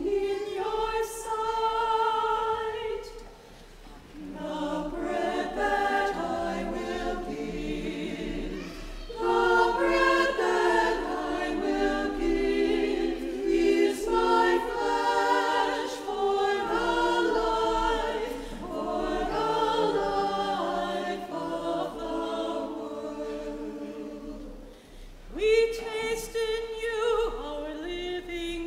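Small church choir of men and women singing together in phrases, with short breaks between them about four, nine and twenty-five seconds in.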